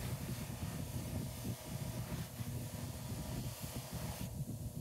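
A workshop power tool running steadily with a low, rough sound.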